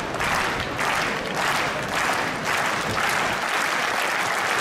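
Crowd clapping in unison to a pole vaulter's run-up, a steady beat of a little under two claps a second. About three seconds in the beat dissolves into continuous applause.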